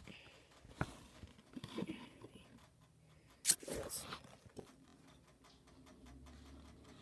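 Handling noise as the camera is picked up, moved and set down: scattered light knocks and rubbing, with one sharp knock about three and a half seconds in.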